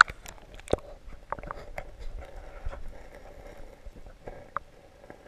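Stream water heard through a GoPro held in a trout stream and dipped under the surface: irregular sharp clicks and knocks over a faint hiss of moving water.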